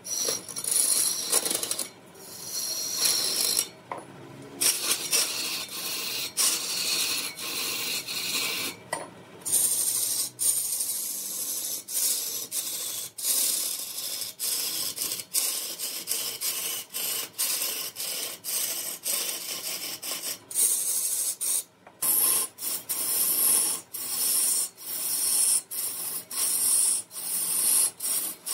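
Repeated rough scraping or rasping strokes, one to two a second, with a few brief pauses.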